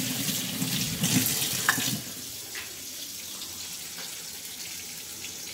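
Water from a kitchen tap running into a stainless steel sink during washing up, with a few splashes. After about two seconds it gives way to a quieter steady hiss.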